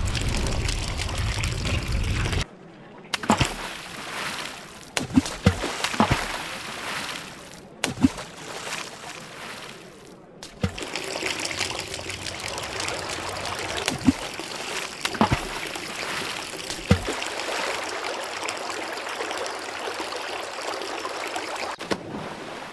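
Cartoon water sound effects: a low rumble for the first couple of seconds, then scattered plops and drips, then a steady rush of gushing water that runs until just before the end.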